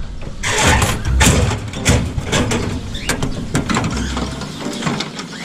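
Crank knob of a coin-operated feed dispenser being turned, its mechanism clicking in a run of sharp, uneven clicks, two or three a second.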